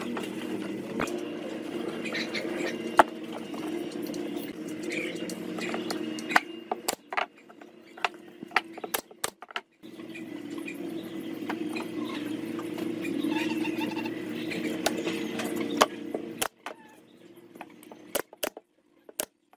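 Knocks and taps of wooden frame pieces being handled on a table, over a steady hum that breaks off twice. A few sharp clicks come near the end.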